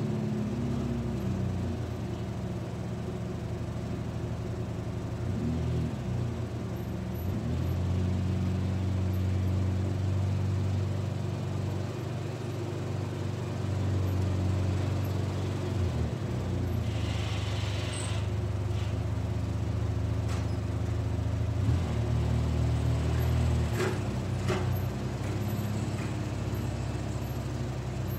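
2004 Polaris Sportsman 600 ATV engine running, its low hum rising and falling in strength as the revs change. A short hiss comes about two-thirds of the way through, followed by a few light clicks.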